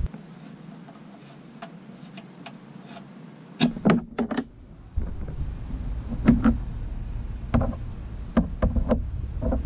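Scattered small clicks and knocks from hands working the oil drain fitting, a small cap and a drain hose on the oil pan, with a cluster of louder knocks about four seconds in and several more through the second half. A low steady background rumble comes in about three and a half seconds in.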